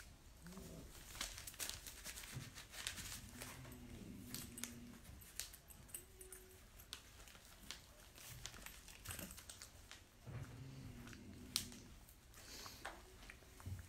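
Faint clicks and rustling of small objects being handled, with soft low hums now and then.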